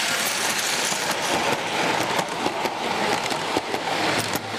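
0 gauge tinplate model trains running past close by: metal wheels rattling along tinplate track, with a quick run of sharp clicks from about a second in as they cross the rail joints.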